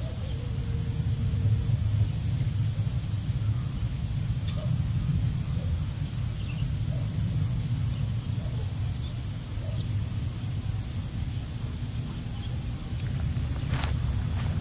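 Crickets trilling in a steady, high, pulsing chorus over a low background rumble. Near the end there are a few rustling footsteps through undergrowth.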